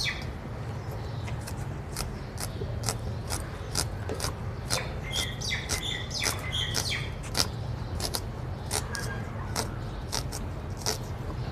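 Scissors snipping through a peeled onion, a crisp cut about twice a second. Small birds chirp around the middle.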